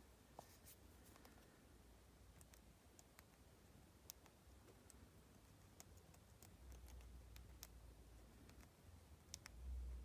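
A thin metal pin picking at an iPhone XR's bottom speaker holes and charging port: faint, scattered ticks and light scratches over a low rumble from handling the phone.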